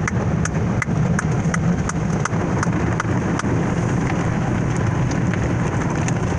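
Automatic car wash spraying water and foam onto the car, heard from inside the cabin: a steady rushing hiss over a low rumble. Sharp ticks come about three times a second and fade after about three and a half seconds.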